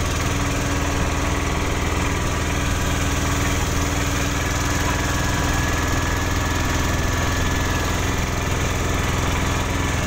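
A small motorcycle engine running steadily at cruising speed, heard from on the moving bike.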